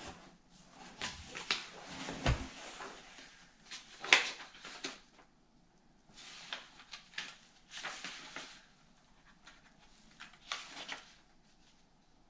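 Sheets of printed paper being handled and leafed through: a series of short rustles with quiet gaps between them, and a low thump about two seconds in as things are moved in the box.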